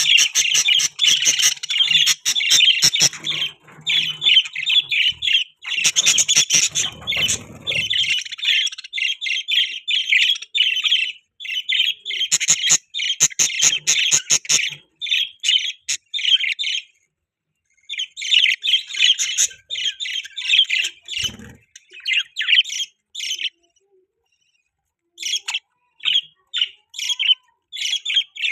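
Budgerigars chattering in rapid, high chirps and squawks, stopping and starting with a few short pauses.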